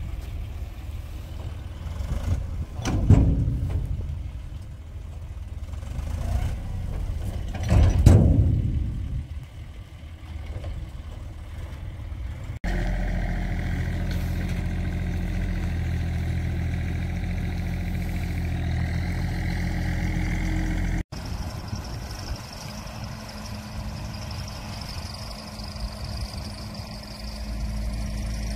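Heavy diesel machinery running: a dump truck's engine rumbling with two louder surges as it tips out a load of cow manure, then, after cuts, a steady engine hum and an excavator's engine running.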